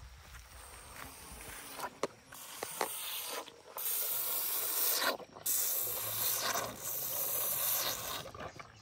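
Young African elephant sucking milk from a bottle held up in its trunk: a few clicks, then long hissing sucks through the teat, about two seconds in, broken by brief pauses.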